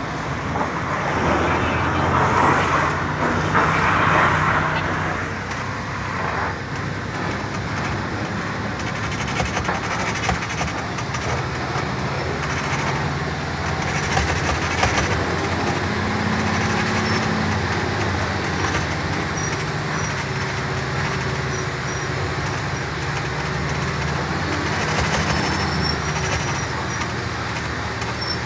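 Truck engine running steadily with road and cab noise, heard from inside the cab while descending a steep gravel road. It is louder and rougher for a few seconds near the start.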